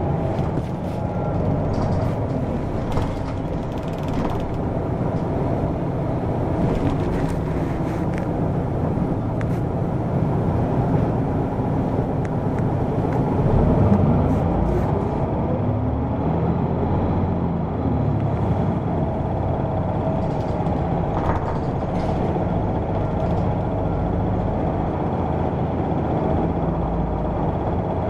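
Hino PDG-KV234N2 city bus's diesel engine and drivetrain running steadily as the bus drives along, with a change in engine pitch about halfway through and a few light rattles.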